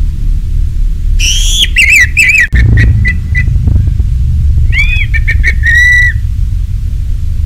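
Orange-headed thrush singing: two bursts of loud whistled phrases, the first starting about a second in and the second around five seconds in, with quick repeated notes and a final held note, over a steady low rumble.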